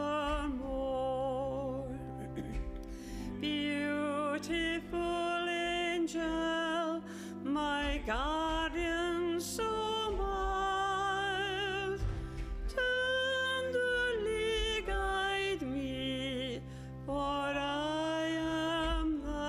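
Solo sacred singing: one voice sings long held notes with wide vibrato over sustained low accompanying notes.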